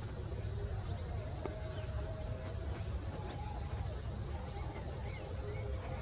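Outdoor background birdsong: many short, quick chirps from small birds, scattered throughout, over a steady high-pitched hiss and a constant low rumble.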